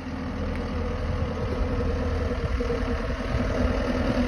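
Tracked skid steer's engine running steadily, growing gradually louder.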